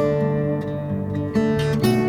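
Background music on acoustic guitar, with strummed chords about a second and a half in.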